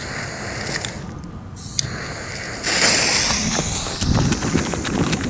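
Fuse of a Nico Sweet Sixteen firework battery burning with a sputtering hiss that gets louder about two and a half seconds in. From about four seconds in, a run of sharp clicks and low thumps comes in.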